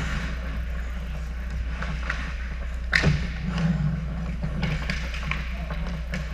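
Ice hockey play: skates scraping the ice and sticks and puck clacking, with one loud sharp clack about three seconds in, over a steady low hum.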